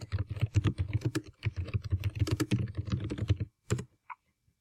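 Typing on a computer keyboard: a quick, steady run of keystrokes for about three and a half seconds, then it stops after one or two last keys.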